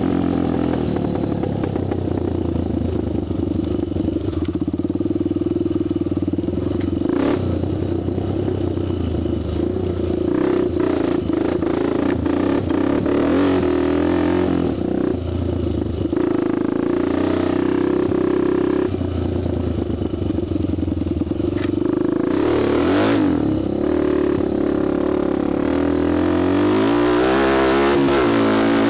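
Honda TRX250X quad's single-cylinder engine running while ridden, its revs rising and falling over and over with a few knocks along the way, then climbing steeply near the end.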